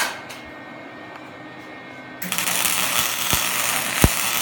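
Lincoln MIG welder running flux-core wire: the arc strikes suddenly about two seconds in and carries on as a loud, steady crackling hiss with sharp pops from the spatter.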